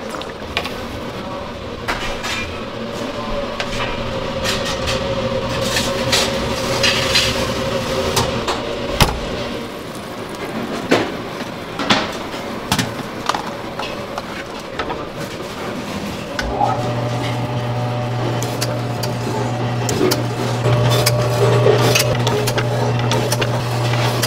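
Kitchen clatter: knocks and clinks of metal trays and wire racks being handled. About two-thirds of the way through, an electric deli meat slicer's motor starts up and runs with a steady hum.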